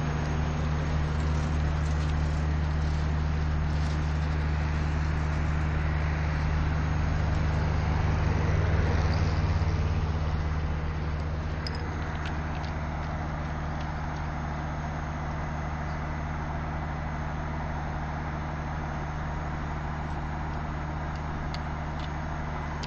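Diesel railway engine running steadily at idle, a deep constant hum with a rushing noise over it, swelling for a few seconds before the middle and then settling a little quieter.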